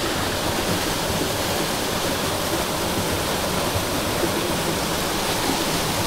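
Waterfall pouring into a rocky stream pool, a steady, even rush of water.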